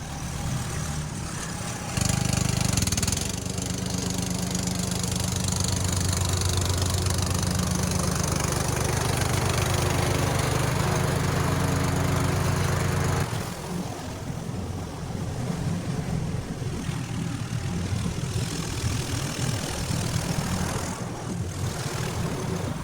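Riding lawn mower engine running, steady and even at first, then rougher and less even from about 13 seconds in.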